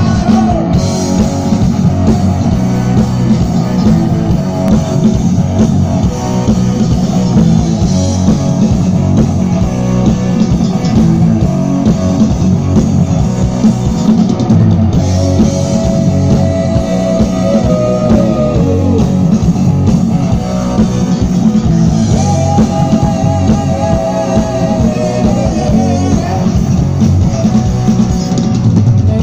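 Rock band playing live: loud electric guitars and drum kit with sung vocals, heard from the crowd in front of the stage.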